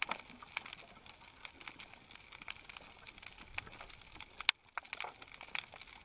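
Underwater coral-reef ambience: a faint, irregular crackle of scattered short clicks, with one sharper click about four and a half seconds in.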